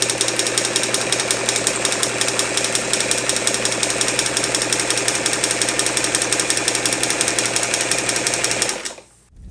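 Singer 237 sewing machine running at full speed, its needle stitching through paper with a rapid, even clatter of about 666 stitches a minute over a steady motor hum. It stops suddenly near the end.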